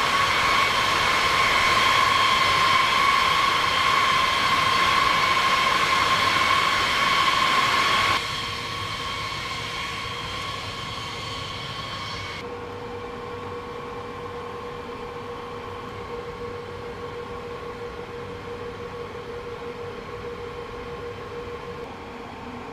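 Steady whine over a rushing noise inside a B-52 bomber: aircraft engine and air-system noise in and around the crew compartment. The sound drops abruptly about 8 s in, and about 12 s in the high hiss falls away, leaving a lower steady hum with one held tone.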